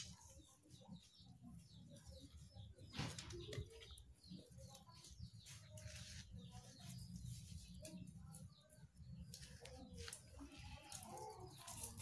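Near silence: faint outdoor background with distant birds calling, over a low steady hum. A few soft clicks come as thin bamboo kite strips are handled and tied.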